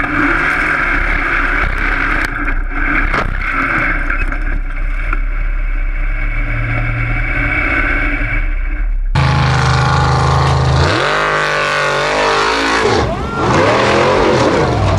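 Formula Offroad buggy engine heard from the cockpit through an onboard camera, a steady muffled drone. About nine seconds in it changes to the engine revving hard, its pitch swinging up and down as the buggy claws up a steep dirt slope.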